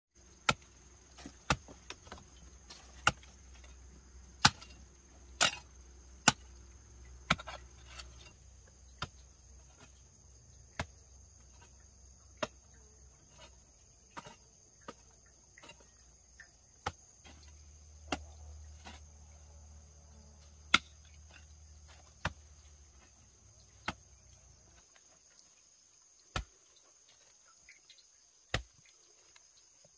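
Repeated sharp chopping strikes, roughly one every second or so, over steady high chirring of crickets. A low hum underneath stops about 25 seconds in.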